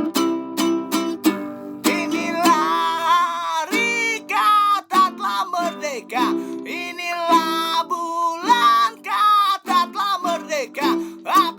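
Music: strummed chords on a small plucked-string instrument, joined about two seconds in by a voice singing a gliding melody over the accompaniment.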